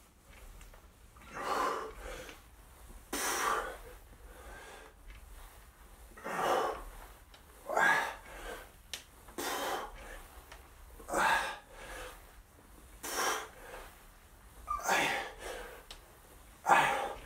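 A man breathing hard from exertion during a bodyweight workout: short, forceful breaths about every one and a half to two seconds, keeping time with his squats.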